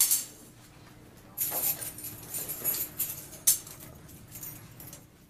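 Handcuffs and restraint chains clicking and clinking as an inmate is restrained. A few sharp clicks at the start, then a stretch of rustling and jingling from about a second and a half in, ending in one sharp click.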